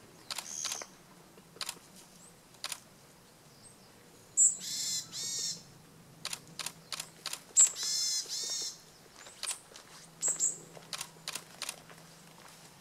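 Varied tit giving its buzzy call notes: two strings about a second long each, about four seconds in and again about three seconds later, among scattered short sharp ticks and a brief high note near the start.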